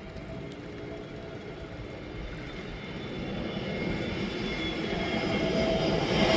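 Airbus A320neo jet airliner on final approach, its engine noise with a steady whining tone growing steadily louder as it nears.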